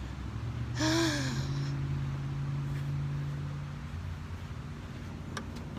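A short voiced sigh about a second in, pitched and breathy, rising then falling, over a steady low hum that fades away.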